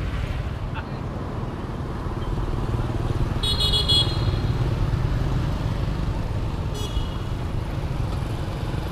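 Road traffic from passing motorbikes and tuk-tuks, a steady low rumble. A short high-pitched toot sounds about midway, and a shorter, fainter one follows a few seconds later.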